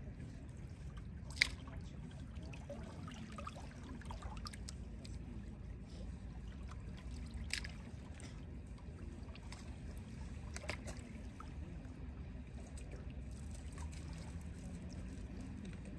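Small waves lapping and trickling among shoreline rocks, a steady low wash broken by a few sharp ticks of water, the loudest about a second and a half in.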